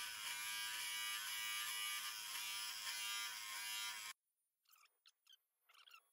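Cordless electric beard clipper running with a steady high buzz while trimming a mustache. It cuts off suddenly about four seconds in, leaving near silence.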